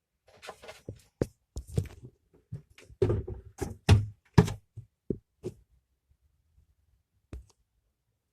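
Hands handling the seed packet and plastic terrarium: a quick series of close knocks and taps for about five seconds, then a single tap near the end.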